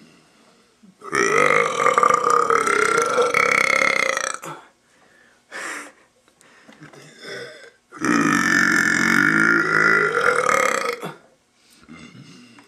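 A young man burping: two long, drawn-out, loud burps of about three and a half seconds each, the first starting about a second in and the second about eight seconds in, with a short sound between them.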